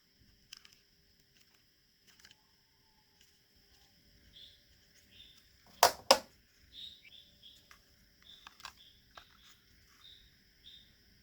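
Two sharp clicks a quarter second apart about six seconds in, over faint, steady high chirping with short repeated chirps and a few small ticks.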